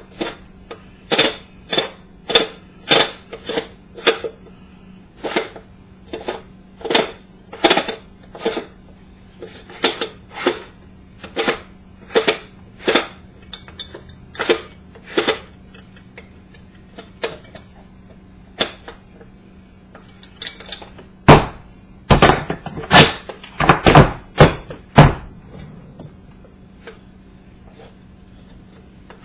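Hammer blows on the metal parts of an old ceiling fan, each knock ringing briefly, about one or two a second, with a run of much harder strikes about three-quarters of the way through: an attempt to knock loose a part the owner thinks has probably rusted on.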